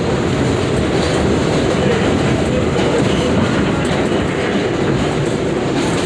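New York City 7 subway train running along the track, heard from inside the car: a steady noise of wheels on rails and car motion.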